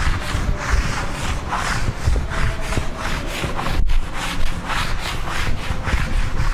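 Blackboard duster wiping chalk off a blackboard in repeated back-and-forth strokes, about two swishes a second, over a steady low rumble.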